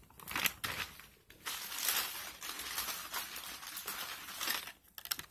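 Plastic crinkling and rustling as items are handled, starting about a second and a half in and stopping just before the end, after a soft knock about half a second in.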